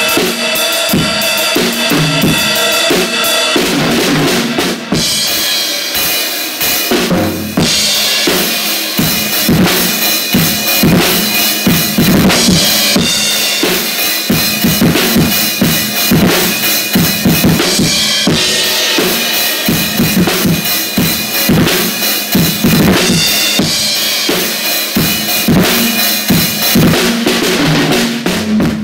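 Acoustic drum kit played continuously in a fast, busy groove: bass drum, snare and cymbals struck in quick succession with the cymbals ringing over them.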